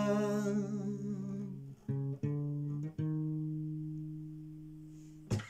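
Guitar playing between sung lines: the tail of a held sung note with vibrato fades out over the first second or so, then plucked notes sound about two and three seconds in and ring out, slowly dying away, before a new strum near the end.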